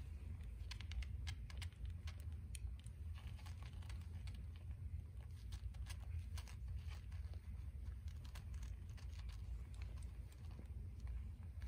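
Newborn kittens nursing and jostling at their mother cat's belly: many irregular soft clicks and smacks from suckling and scrabbling on the bedding, over a steady low rumble.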